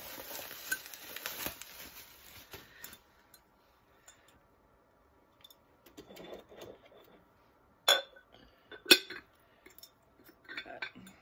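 Handling of a glazed ceramic cat-pumpkin jar: rustling in the first few seconds, then two sharp ceramic clinks about a second apart, the second the louder, as the lid knocks against the jar.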